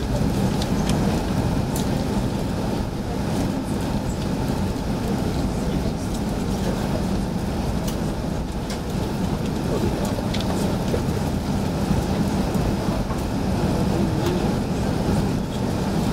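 Steady cabin noise inside an Airbus A380 taxiing: an even low hum and rumble from the engines at low thrust and the rolling aircraft, with a few faint ticks.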